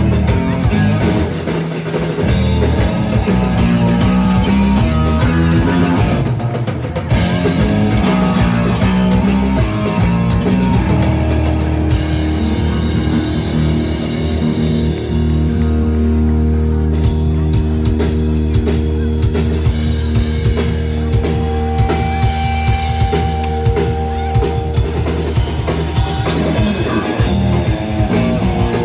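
A live rock band playing: electric guitar, electric bass and drum kit. About ten seconds in the band moves into long held bass and guitar notes under a ringing cymbal wash, then the drums pick back up.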